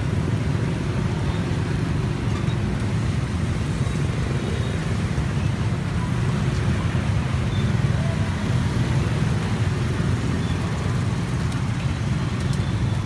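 Steady low rumble of street traffic, with no distinct passing vehicle or impact standing out.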